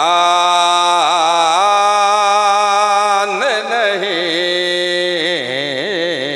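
A man chants a line of Urdu devotional verse into a microphone. He holds long notes with wavering ornaments, with a brief break in the middle.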